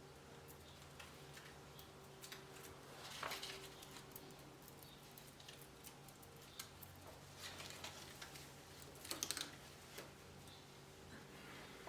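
Faint rustling and light clicks of Christmas decorations being handled and hung, over a low steady hum, with two louder rustles about three seconds in and about nine seconds in.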